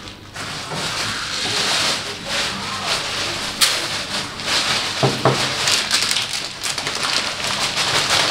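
Dry bulgur poured from a glass measuring cup into a plastic bowl, a steady rush of grains rattling onto the plastic, with a sharp click about three and a half seconds in.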